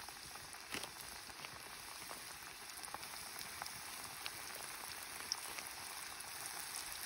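Battered chicken pieces deep-frying in hot oil in a kadai: a steady sizzle with scattered pops, growing slightly louder as more pieces are dropped in.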